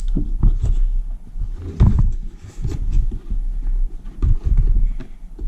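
Handling noise as a helmet intercom's mounting clamp is fitted onto a motorcycle helmet: irregular low thumps and rubbing close to the microphone, with a few sharp clicks.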